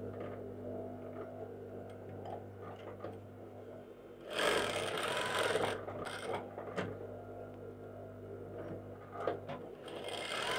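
Juki industrial sewing machine running in short stitching bursts, one of about a second and a half some four seconds in and a shorter one near the end, as the two ends of a waistband elastic are sewn together to close it into a loop.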